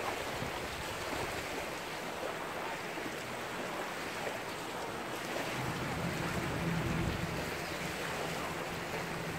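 Steady open-air ambience of wind and shallow lagoon water. A low, steady engine-like hum joins about halfway through.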